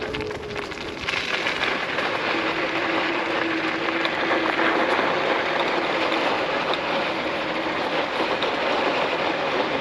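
Steady rushing wind and road noise from riding a Nami Klima 60V electric scooter, rising about a second in as speed builds, with a faint steady tone underneath.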